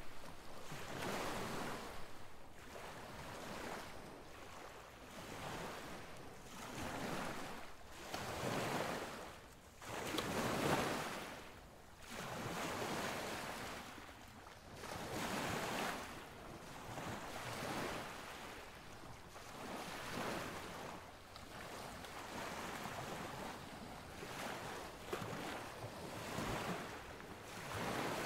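Sea surf and wind noise in an uneven rush that swells and fades every couple of seconds.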